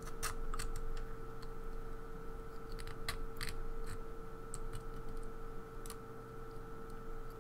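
Sparse small metal clicks and taps of tweezers against a lock plug and its follower as the pins are picked out, over a steady faint hum.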